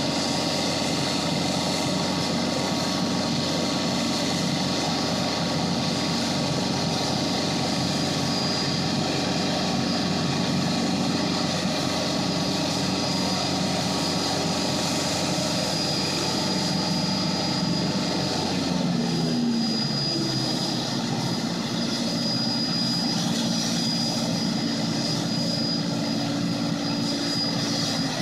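Air Tractor agricultural plane's engine running steadily at ground idle, mixed with the hum of loading machinery. About two-thirds of the way in, a low hum stops and one of the tones drops in pitch.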